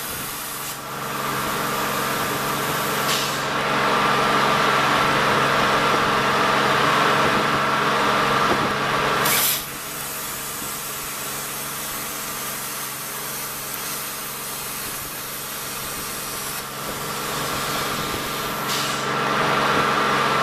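CNC plasma cutter cutting steel plate: a steady hiss of the plasma arc over a constant electrical hum. It is louder for several seconds in the first half, drops suddenly about halfway through, and rises again near the end.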